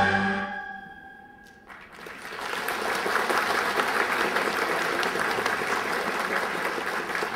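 The last note of a Chinese two-string bowed fiddle (huqin) fades away, and about two seconds in an audience breaks into applause that keeps up steadily.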